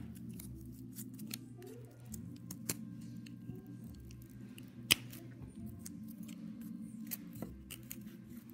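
Kitchen scissors snipping through corrugated cardboard: a string of short crisp snips and crunches, the sharpest about five seconds in, over a steady low hum.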